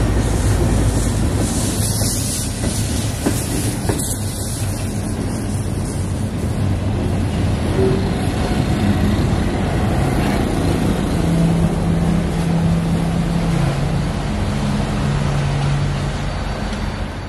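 Train of flatcars loaded with cable reels rolling past, with steady wheel and rail noise and a few sharp clicks of the wheels over the rails in the first half. A low steady hum joins in the second half as the red caboose-type car passes.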